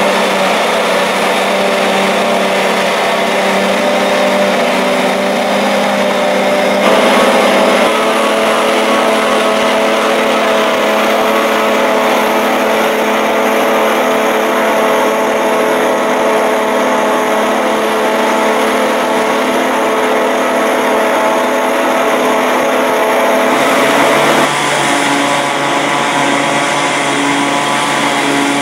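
Stoneslinger truck running its slinger conveyor as it throws sand: a steady engine and machine hum at constant speed over a broad rushing noise. The hum shifts pitch abruptly about seven seconds in and again near the end.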